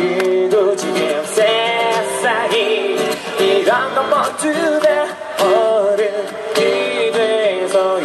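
Live pop-rock music: a strummed acoustic guitar with a band behind it and a melody line that bends in pitch, played in a break between sung lines of the song.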